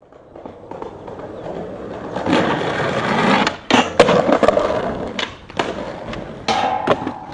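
Skateboard wheels rolling on hard ground, growing louder over the first couple of seconds, then a string of sharp clacks of the board hitting the ground, the loudest about four seconds in.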